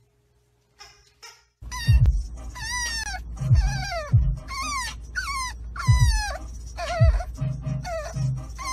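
A French bulldog puppy whining and crying over and over, each cry high-pitched and falling in pitch, over the steady low rumble of a car. The cries start about a second and a half in.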